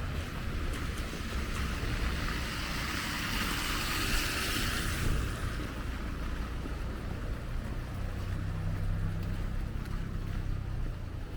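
A car passing on the street: tyre and road noise swells to a peak about four seconds in and fades away, then a vehicle engine hums low near the end.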